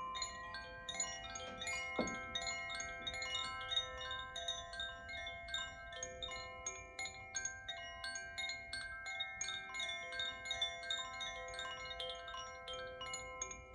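Koshi wind chimes ringing: the clapper strikes the tuned rods in a quick, irregular patter of many overlapping notes that ring on into one another.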